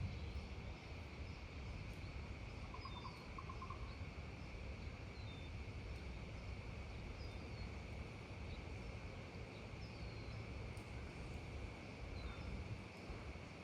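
Outdoor neighbourhood ambience: a steady insect drone over a constant low rumble. Short, falling bird chirps come every second or two, with a brief lower trill about three seconds in.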